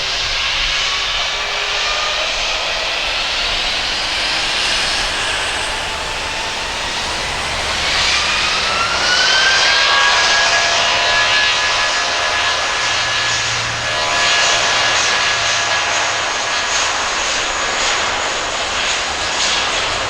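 Airbus A320-232 jet engines (IAE V2500 turbofans) spooling up for takeoff: a whine rises in pitch about eight seconds in, then holds steady over a loud rushing roar at takeoff power.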